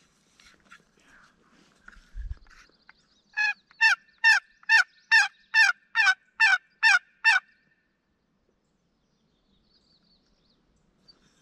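A run of about ten turkey yelps, evenly spaced at a little over two a second, each note falling in pitch. A short low thump comes just before.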